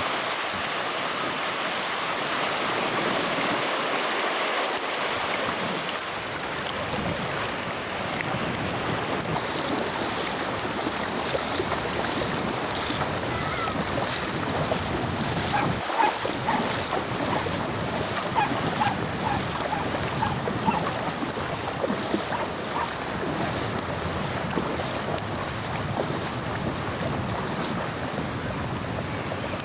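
Sea waves breaking and washing on the shore, with wind buffeting the microphone. Faint short sounds are scattered over the second half.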